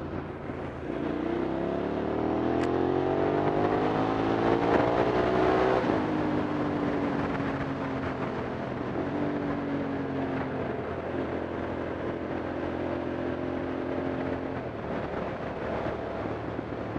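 Hyosung motorcycle engine accelerating, its note climbing for about five seconds, then dropping suddenly about six seconds in and settling to a steady cruise, over wind and road noise.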